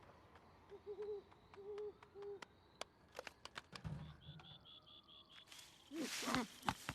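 An owl hooting: three short, low hoots in the first couple of seconds, among faint clicks. A quick, high chirping trill follows, then a louder burst of short rising-and-falling calls near the end.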